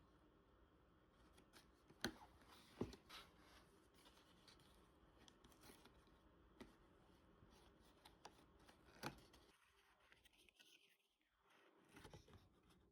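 Faint handling noises: a few sharp clicks and knocks, the loudest about two and three seconds in and another near nine seconds, over low room tone.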